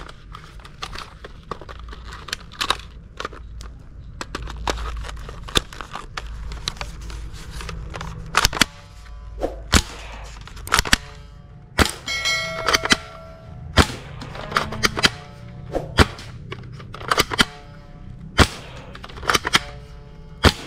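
Toy AK-47 blaster being handled and then fired at a row of small electronic targets. Scattered clicks at first; from about eight seconds in, a sharp snap roughly every second, many followed by a short electronic tone.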